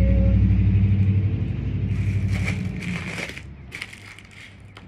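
A motor vehicle's engine hum, loud at first and fading away over about three seconds, with a few crinkles and crackles of plastic packing being worked at.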